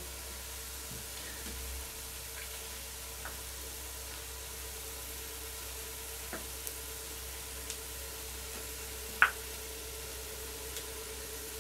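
Hot oil and bacon fat sizzling steadily in a cast-iron Dutch oven as tomato paste is squeezed into it, with a few faint clicks and one sharper tick about nine seconds in.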